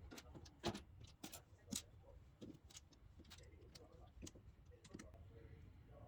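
Faint, irregular clicks and taps of LEGO pieces being handled and pressed together, thickest in the first couple of seconds, over a low steady hum.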